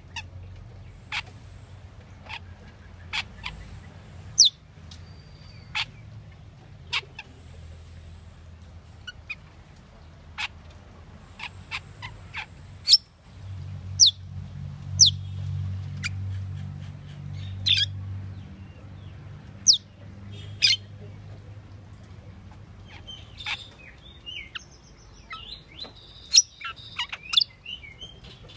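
Asian glossy starling giving short, sharp, high-pitched call notes one at a time, a second or two apart, breaking into quicker chattering near the end.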